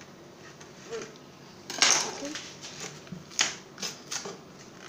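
Hands handling a cardboard food carton on a countertop: a few short, sharp scrapes and taps, the loudest about two seconds in and smaller ones about three and a half and four seconds in.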